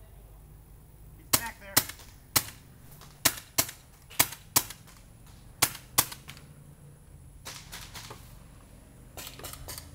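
Paintball markers firing: sharp pops, mostly in pairs about half a second apart, starting about a second in, then a quicker run of shots near the end.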